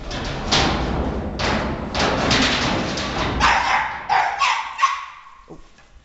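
Terriers barking and yipping in a string of short, sharp bursts, with some thuds among them. The barking stops about five seconds in.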